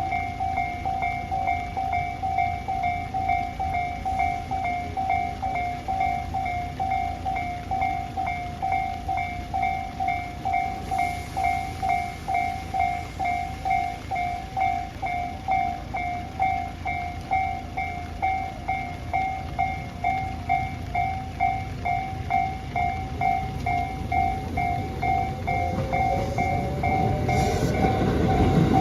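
Japanese railroad crossing warning bell ringing steadily, about two strikes a second. Over the last few seconds an approaching train's rumble grows louder under it.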